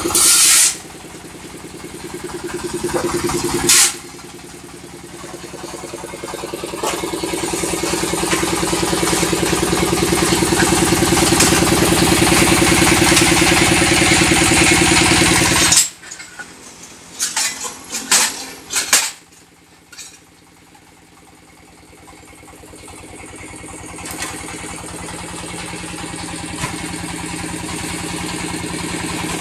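Small engine driving concrete-block-making machinery, running steadily with a rapid even beat, with a couple of sharp bangs in the first few seconds. About halfway through it drops away suddenly, a few metal clanks follow, then it slowly builds back up.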